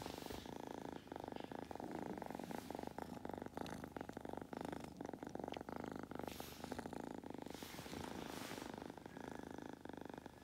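Kitten purring steadily, close up against the microphone.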